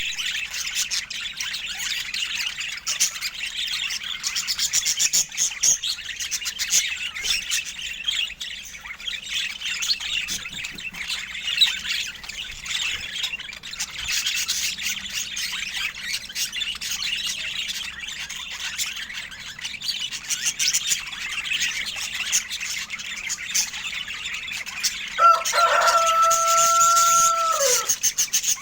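Budgerigars chirping and warbling continuously in a fast, high twitter. Near the end, a single lower held note lasts about three seconds and drops in pitch as it stops.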